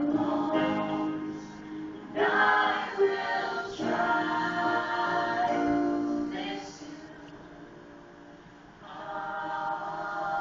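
A show choir singing in many voices over music. It drops to a quieter passage a little past halfway and swells back up near the end.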